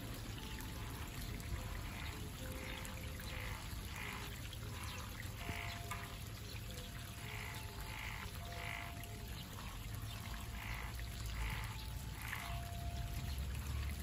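Frogs croaking in a run of short repeated calls, about one a second, over the steady sound of running water.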